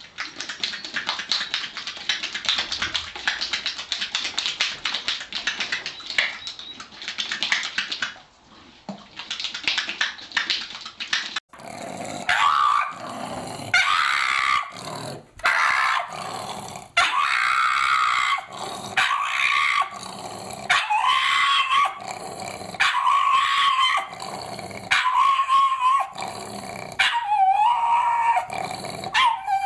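Dogs vocalizing: a long rattling growl made of rapid pulses, then about a dozen drawn-out pitched calls, each about a second long, with short gaps between them.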